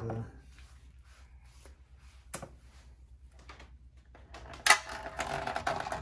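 Small clicks of a magnet weight being handled and set on a vellum drum-skin panel of an experimental violin. About four and a half seconds in, a sharp click, then a quick run of taps and clatter on the panel with a faint pitched tone from the weighted drum skin.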